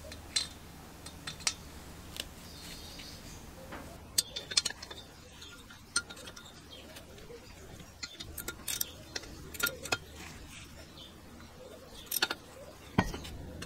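Light metal clinks and clicks, a dozen or so at irregular intervals, from a spanner and loose parts knocking against a rusty small two-stroke engine as it is handled and turned over.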